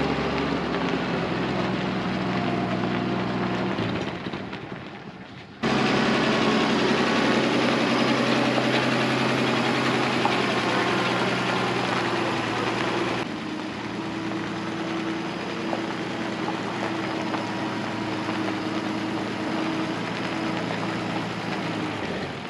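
Newly installed engine of a Chevrolet G-506 military truck running as the truck drives across gravel. It is loudest for several seconds after a cut about five seconds in, as the truck comes close, then a little quieter as it pulls away.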